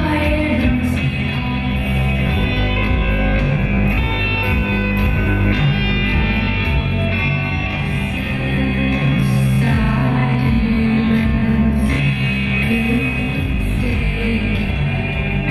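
Rock music with guitar, playing steadily at a constant loud level.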